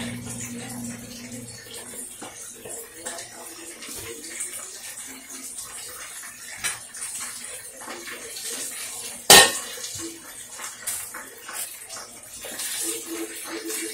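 Hot oil sizzling steadily as fish fries in a pan. About nine seconds in a stainless steel bowl is set down on the granite counter with one sharp metal clank, with a few lighter knocks before it.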